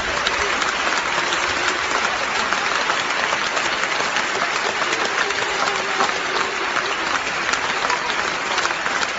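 Audience applauding steadily, many hands clapping without letting up.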